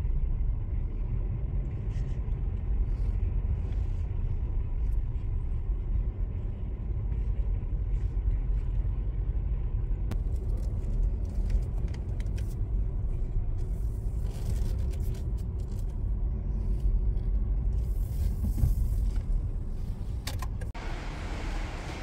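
Covered car park ambience: a steady low rumble with scattered faint clicks. A hiss rises briefly about fourteen seconds in and again near nineteen seconds, and the sound turns brighter just before the end.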